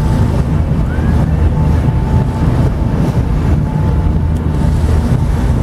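A tour boat's engine running steadily, heard as a low, even rumble, with wind buffeting the microphone on the open deck.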